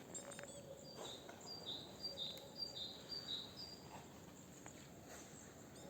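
A small songbird singing a repeated two-note phrase, a higher chirp then a lower one, about seven times in quick succession before it stops, faint over a low steady hum.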